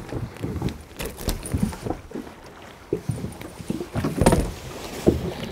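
Handling noises as a small ballan wrasse is lifted out of a landing net by hand: irregular knocks, rubs and rustles of the net and fish, the loudest about four seconds in.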